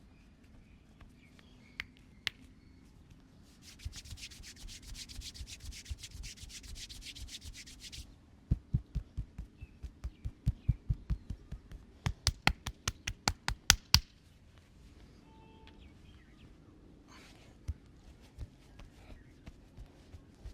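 Hands massaging bare skin: a few seconds of fast, brisk rubbing strokes, then a run of sharp rhythmic hand strikes, about three a second, growing loudest just before they stop. A few light taps follow near the end.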